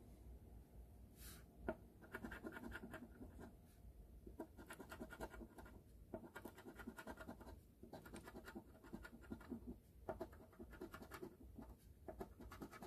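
Coin scraping the scratch-off coating from an instant lottery ticket in quick bursts of short strokes, with brief pauses between bursts.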